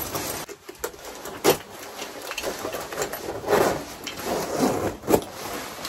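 A puffer winter coat being handled and fastened: fabric rustling, with a few sharp clicks from its hardware.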